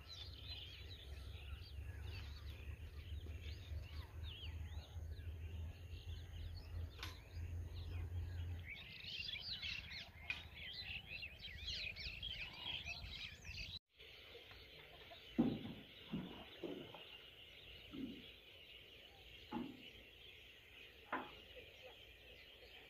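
Many small birds chirping and twittering faintly, most densely around the middle. After a cut, a steady high-pitched chorus goes on, with about six short, louder calls spaced a second or two apart.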